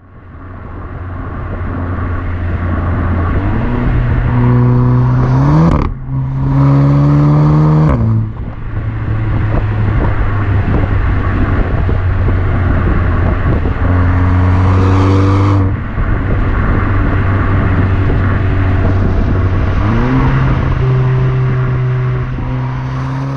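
Exhaust of an Audi TT 8S 2.0 TFSI turbocharged four-cylinder, heard from the rear of the car while driving, with road and wind noise under it. The engine note rises in pitch through several hard pulls and drops sharply at each upshift, about six and eight seconds in and again after a longer pull near sixteen seconds, before climbing once more.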